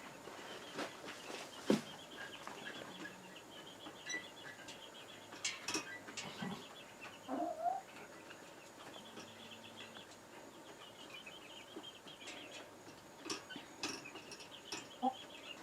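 Chickens settling on the roost, giving a few faint, short clucks and making small knocks, over crickets chirping steadily in rapid high trills.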